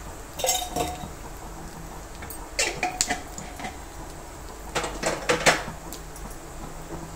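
Stainless-steel kitchen vessels and a spoon clinking and clattering against one another in three short bursts, the last the loudest, some strikes leaving a brief metallic ring.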